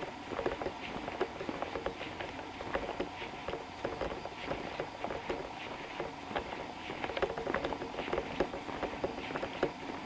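Footsteps of someone walking on a paved path, a steady run of irregular quick scuffs and clicks with the rustle of carried gear.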